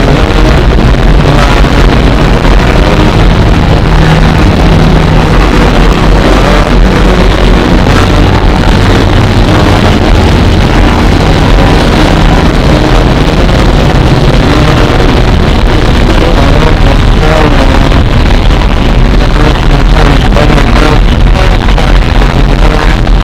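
Loud, dense experimental noise music: a steady wall of distorted noise, heaviest in the low end, with faint held pitches running through it.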